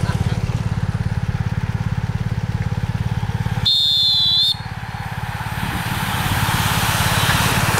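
An engine running close by with a steady, rapid low throb. About four seconds in, a sharp high tone sounds for about a second and stops suddenly.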